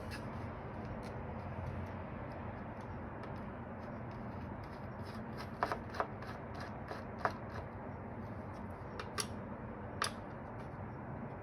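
Light clicks and ticks of a T8 Torx screwdriver loosening the screws of an iMac's speaker panel, with a handful of sharper taps in the second half, over steady background noise.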